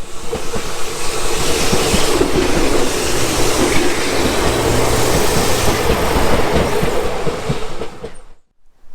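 A train passing close by, its wheels clattering over the rail joints with a steady whine underneath. The sound is loud and stops abruptly about eight seconds in.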